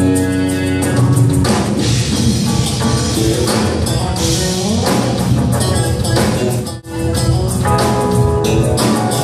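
Live band playing instrumental music, with a keyboard, a drum kit and bass guitar. The sound cuts out for a moment about seven seconds in.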